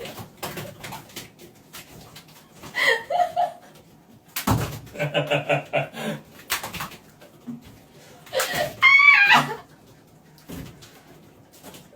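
People's voices laughing in quick bursts and letting out a high, wavering shriek near the end, with a sudden thud about four and a half seconds in.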